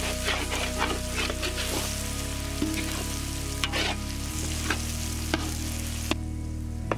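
Tomato and garlic masala sizzling in a black iron kadai while a spatula stirs and scrapes across the pan, with steady background music underneath. The sizzling drops off near the end.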